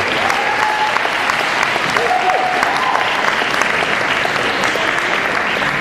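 Audience applauding steadily, many hands clapping at once, with a few voices calling out over the clapping.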